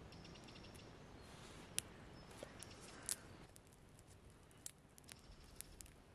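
Small campfire of dry grass tinder and thin sticks catching light: scattered sharp crackles and pops, the loudest about two and three seconds in. A faint rapid run of high ticks comes near the start and again near the end.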